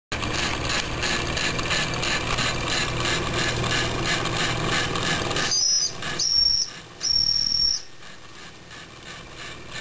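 Wilesco toy steam traction engine under steam: a loud hiss pulsing about three times a second, then three toots of its steam whistle, the last one longest, followed by a fainter hiss.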